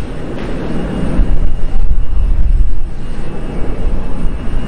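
Twin jet engines of an Airbus A320-family airliner at takeoff thrust during its takeoff roll: a loud, steady rumble that swells about a second in.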